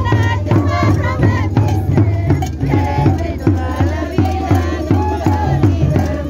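A group singing a traditional Andean festive song in high voices, to snare drums struck in a steady, fast rhythm and a cane flute.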